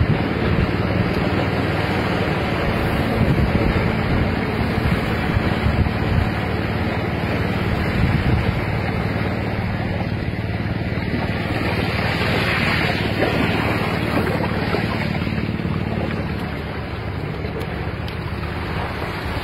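Steady wind noise on the microphone with surf washing on the shore. A wave swells up about twelve seconds in.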